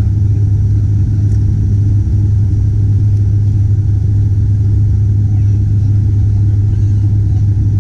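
Turboprop airliner cabin noise beside the propeller: a steady low propeller drone over engine rumble and air rush, unchanging throughout.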